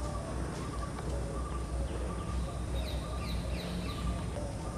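Forest ambience of birds calling: a string of short, evenly repeated notes and quick high falling chirps, over a low steady rumble.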